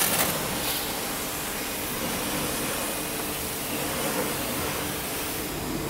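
Pressure washer jet spraying onto a mud-caked truck tire and wheel well, rinsing the mud off: a steady, loud hiss of water spray that starts abruptly as the trigger is pulled, with a faint steady hum beneath.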